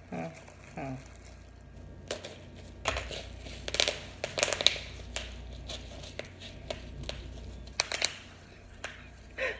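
Plastic bubble-wrap packaging crinkling and crackling in the hands as it is worked open, in irregular bursts from about two seconds in.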